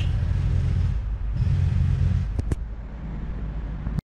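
Low outdoor background rumble with two short clicks about two and a half seconds in, cutting off suddenly near the end.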